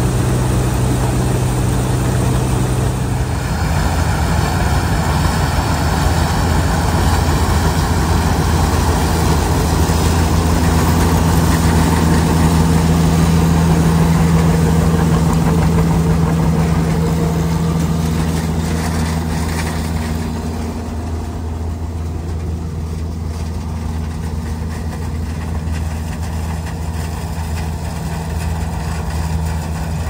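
Vintage farm tractor and combine engines running steadily, with machinery working under them. The engine sound shifts about three seconds in and again about twenty seconds in.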